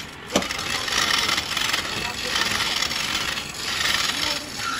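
Hand chisel cutting into a wooden bed-leg blank spinning on a wood lathe: a hissing scrape of shavings coming off, rising and falling in swells about a second long as the tool is worked along the wood, with a short break and a couple of clicks at the start.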